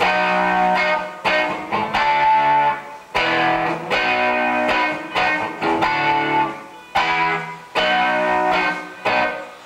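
Electric guitar strumming chords, each struck sharply and left to ring, about one a second.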